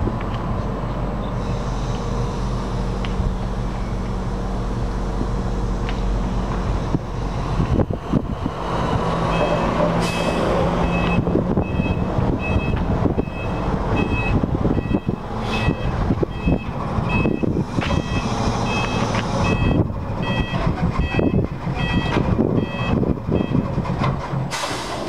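Truck engine running steadily while a container is tipped. From about nine seconds in, a warning beeper sounds at a steady pace, a little faster than once a second, over the engine with scattered knocks and clunks.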